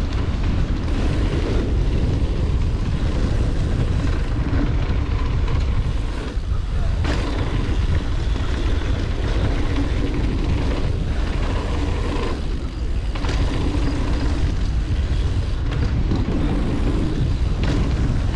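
Wind rushing over the camera microphone and mountain bike knobby tyres rolling on hard-packed dirt as the bike rides downhill, with scattered knocks and rattles from the bike over bumps. The rush dips briefly twice.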